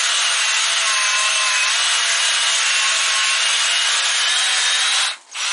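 Hand drill running steadily, spinning a ball hone wrapped in a soapy rag that scrubs up and down inside a freshly honed cylinder bore of a small-block Chevy 400 engine block to clean out the honing grit. The drill stops about five seconds in, then gives one short burst near the end.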